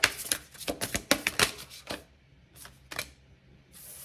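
A deck of tarot cards shuffled by hand: a quick run of card snaps and slaps for about two seconds, then a few scattered ones and a brief rustle near the end.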